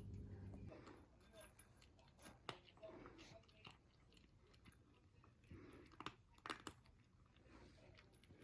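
Faint, scattered clicks and soft taps. A low steady hum stops under a second in.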